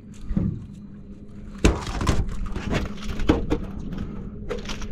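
Irregular knocks and thumps on an aluminum boat deck as a freshly landed flounder is handled in the landing net, the loudest about a second and a half in, over a low steady hum.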